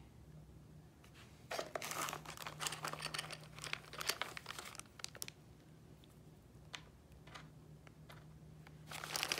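Plastic packaging holding miniature greenery crinkling as it is handled, in bursts from about one and a half seconds in to about five seconds, with a few light ticks after and more crinkling near the end.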